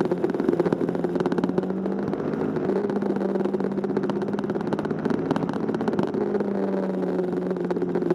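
Motorcycle engine running at a steady cruising pace, its note dipping and rising slightly a few times, under a constant rush of wind noise.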